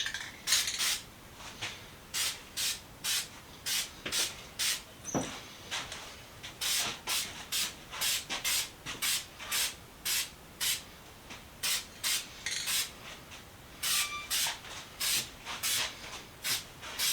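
Paint being brushed onto small metal vise parts: short, scratchy swishes of the brush, about two a second, with a couple of brief pauses.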